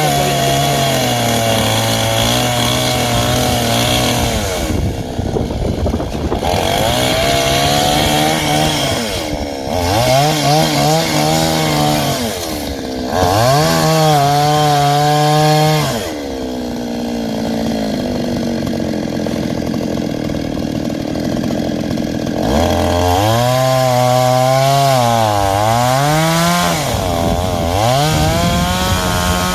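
Two-stroke chainsaw running while cutting into a coconut palm trunk, its engine speed climbing and dropping back several times, with a steadier lower stretch in the middle.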